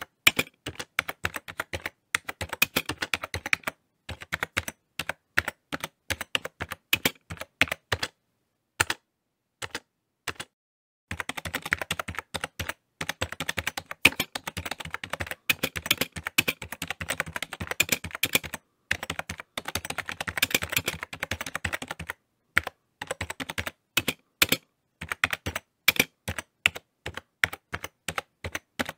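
Keyboard typing: rapid, irregular key clicks in runs broken by short pauses, with a long unbroken run of typing in the middle.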